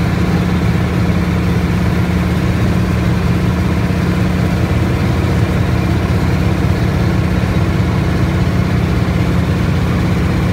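Boat engine running steadily, heard from on board with a constant low hum that does not change.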